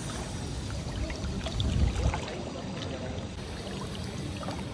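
Swimming pool water splashing and sloshing, swelling for a moment about two seconds in.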